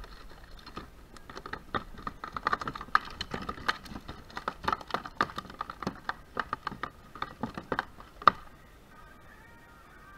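Quick irregular clicks and taps of fishing tackle being handled on a plastic sit-on kayak as a fish is reeled in and brought aboard, with one sharper knock near the end.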